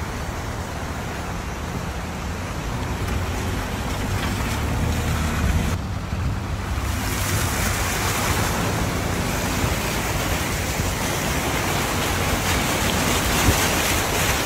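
Fast-flowing muddy floodwater rushing, a steady loud noise of moving water. About six seconds in it turns brighter and hissier.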